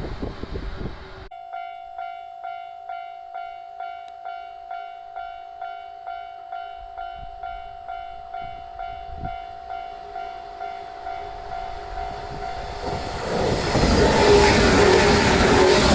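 Japanese level-crossing warning bell ringing a steady electronic ding about twice a second, after the noise of a passing train cuts off about a second in. Near the end a second electric train approaches and runs loudly through the crossing over the ringing bell.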